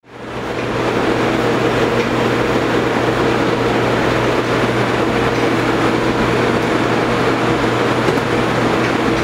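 Steady mechanical roar with a constant low hum from a commercial kitchen's running equipment, fading in over the first second.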